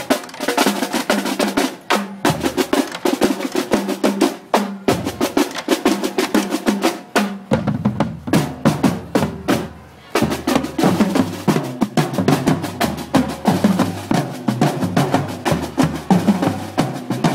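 Marching percussion group playing snare and bass drums, with dense strikes and snare rolls, briefly dropping away about ten seconds in before carrying on.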